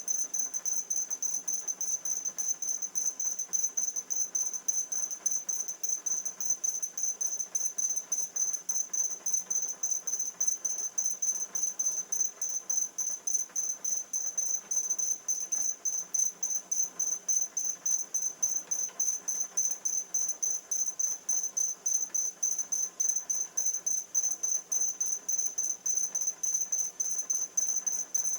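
Swarm of e-puck robots beeping through their small speakers: a rapid, unbroken stream of high-pitched beeps, several a second, running together, played at double speed. Each beep is a robot announcing itself; the robots count the beeps they hear to judge how many neighbours are close.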